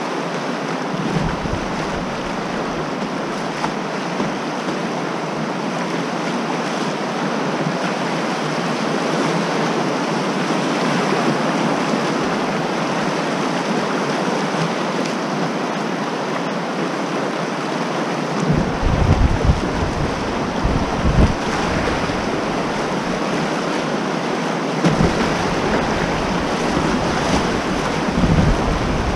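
Whitewater rapid rushing and splashing around a kayak, heard close to the water. From about two-thirds of the way in, irregular low buffeting thumps of wind and waves hit the microphone.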